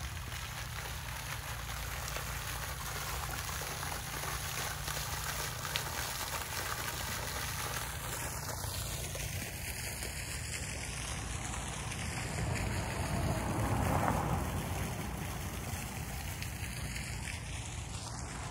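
Steady splashing hiss of a garden fountain's water jet falling into its basin. A louder rushing swell builds and fades about three quarters of the way through.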